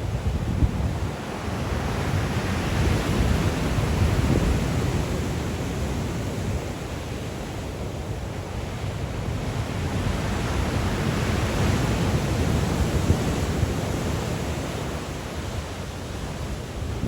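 Sea waves breaking on the shore in a strong wind, a continuous rushing wash that swells twice, with wind buffeting the microphone in the low end.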